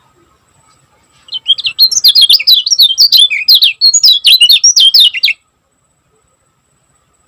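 Kecial kuning (lemon-bellied white-eye) singing a fast, tightly packed burst of high chirping notes for about four seconds, starting a second in and stopping abruptly.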